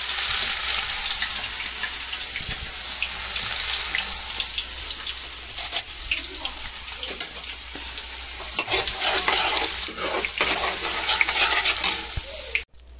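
Cut cauliflower frying in hot oil, with a steady sizzle and the short clicks and scrapes of a spatula stirring it in the pan. The sizzle cuts off abruptly near the end.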